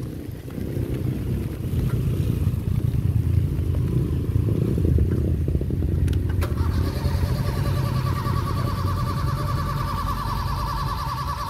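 Owner-type jeep's gasoline engine running with a steady low rumble. About six seconds in, a steady high whine joins it.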